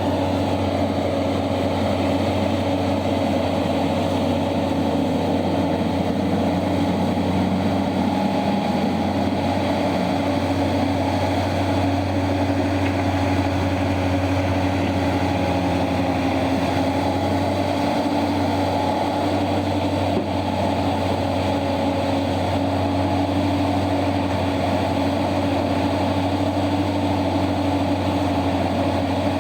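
Big diesel engine of heavy mining equipment running steadily at a constant speed, an even low drone with no knocks or changes.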